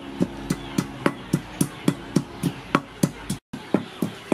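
Wooden pestle pounding chili in a wooden mortar: steady, regular knocks about three to four a second, with a brief gap about three and a half seconds in.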